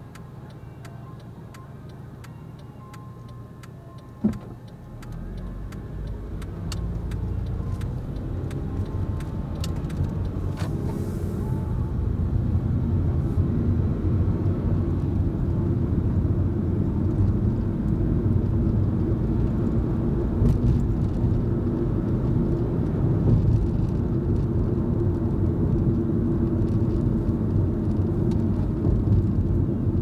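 Car heard from inside the cabin: a quiet wait with a faint regular ticking of the turn-signal relay and a sharp knock about four seconds in. Then the car pulls away, and engine and tyre noise rise over several seconds to a steady cruising drone.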